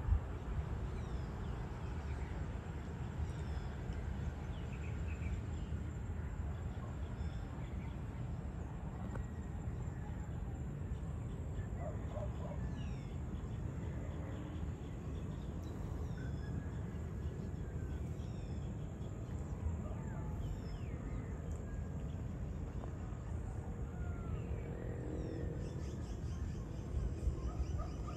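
Outdoor evening ambience: scattered short bird chirps and calls over a steady low rumble, with a faint steady high insect hum.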